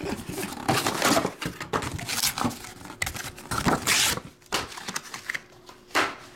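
A Topps Chrome Black cardboard box being opened and its foam insert handled: irregular rustling and scraping, busiest in the first four seconds, then a couple of short knocks near the end.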